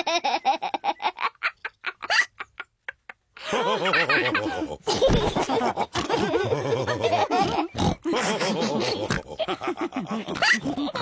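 Cartoon pig characters laughing with snorts. The laughter breaks into a quick run of short snorts that fades away, then after a brief pause about three seconds in, the snorting laughter resumes.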